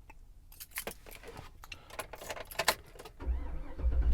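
Keys jangling in a series of quick metallic clinks, followed near the end by a heavy low rumble that sets in and grows louder.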